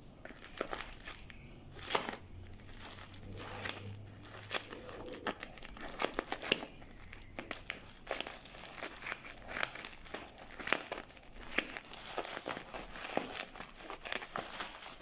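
Plastic bubble wrap crinkling and crackling in irregular bursts as it is handled and cut open with scissors.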